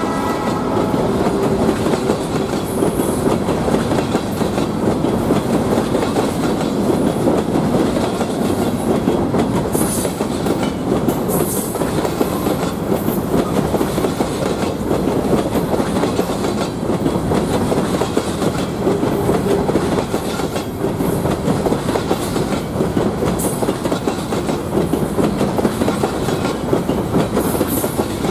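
Covered hopper cars of a freight train rolling past close by: a steady, loud rumble of steel wheels on the rails, with brief high squeals a few times. The tail of a train horn dies away at the very start.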